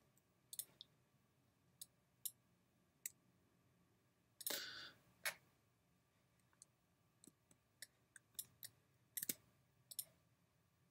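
Faint, irregular clicks of a computer mouse and keyboard, about a dozen spread through the stretch, with a short noisier sound about halfway through.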